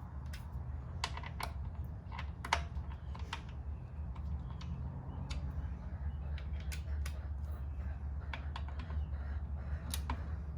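Irregular light metallic clicks and taps of a hand wrench working the rear-wheel bolts of a motorcycle as they are snugged up by hand, over a steady low hum.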